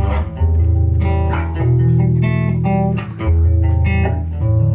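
Guitar playing a song's instrumental opening: picked notes over held low bass notes that change every second or two.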